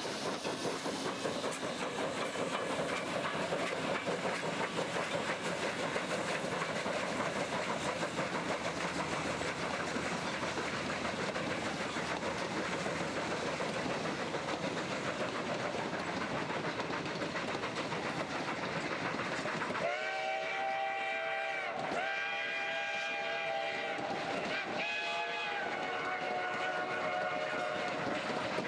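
Two Durango & Silverton K-36 narrow-gauge 2-8-2 steam locomotives working a passenger train past, with a dense run of exhaust chuffs and rail noise. About twenty seconds in, as the noise eases, a chime steam whistle blows long, long, short, long, the grade-crossing signal, over the rolling of the cars.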